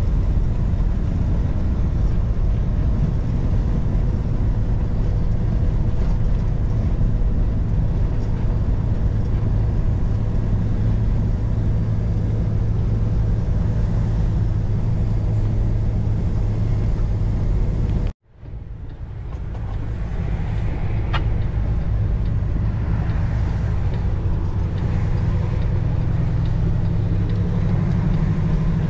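Steady drone of a semi truck's diesel engine and road noise heard inside the cab while driving. It cuts out suddenly about two-thirds of the way through and fades back up within a couple of seconds.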